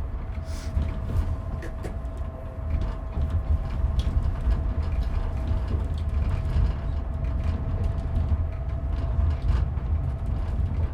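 Inside a moving train carriage: a steady deep rumble of the running train with a faint constant whine, and scattered small clicks, creaks and rattles from the carriage.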